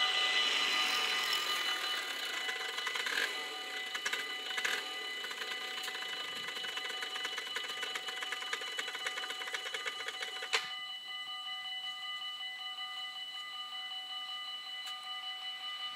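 Electric warning bells of a Dutch automatic half-barrier level crossing ringing with rapid, even strokes while the barriers lower. About ten and a half seconds in there is a sharp clack and the rapid ringing stops, leaving fainter tones.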